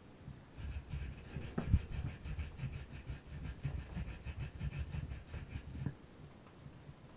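Java macaque rasping her mouth rapidly up and down the metal barrel and stripped-down bristles of a round hairbrush: a fast, even scraping rhythm of several strokes a second with soft thuds under it, stopping about a second before the end.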